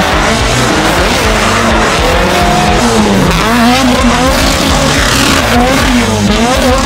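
Drift cars sliding under power: engines held at high revs, rising and falling, with tyres squealing as they spin.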